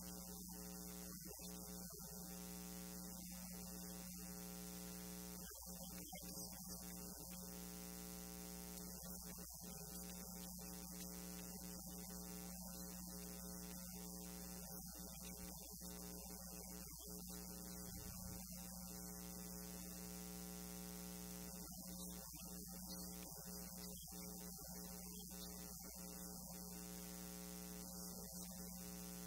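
Steady electrical mains hum with a faint hiss over it, unchanging throughout.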